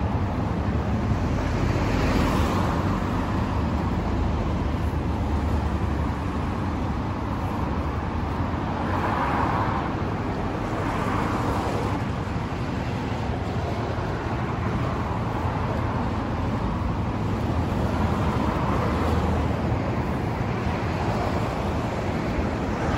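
Honda CB1100RS's air-cooled inline-four idling steadily through a Moriwaki aftermarket exhaust. Passing traffic swells in and out a few times.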